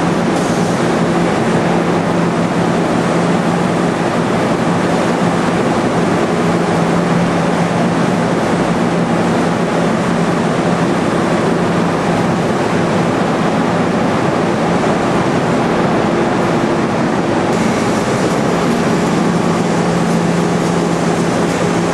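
Food-processing plant machinery running, with electric pump motors and process equipment keeping up a steady hum over a constant loud roar. The roar turns a little hissier near the end.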